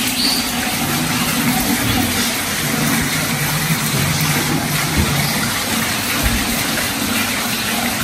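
Heavy rain falling steadily, an even hiss, with a low steady hum underneath it.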